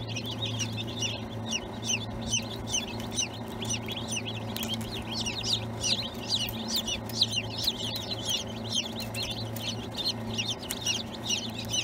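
Many newly hatched chicks peeping nonstop, a dense chorus of short high chirps, over a steady low hum.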